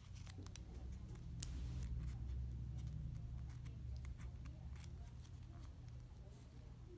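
Faint, scattered small clicks and taps from a hand handling a smartphone and a SIM card on a glass-topped table, with one sharper click about a second and a half in, over a steady low hum.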